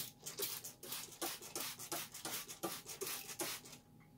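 Hand trigger spray bottle squirting water onto cut tobacco in a rapid run of short hissing sprays, about three or four a second, each with a faint click of the trigger, stopping shortly before the end. The leaf is being misted to raise its moisture before fermentation.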